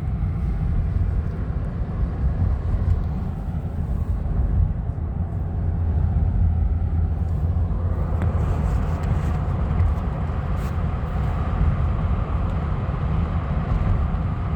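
Steady low rumble of a car driving, heard from inside the cabin, with a little more hiss coming in about halfway through.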